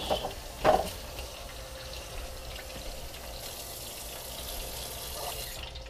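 Kitchen tap running into a stainless-steel sink over fish being rinsed in a plastic colander, with one short sharp knock under a second in. The water cuts off just before the end.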